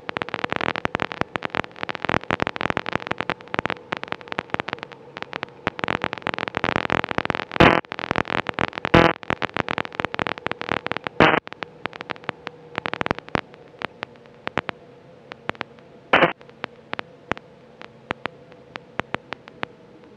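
Crackling static on an aircraft VHF radio feed: dense clicks and pops, thinning out after about 13 seconds, with a few short hissing bursts and a faint steady tone underneath. It is the constant crackle that a newly fitted antenna has not cured.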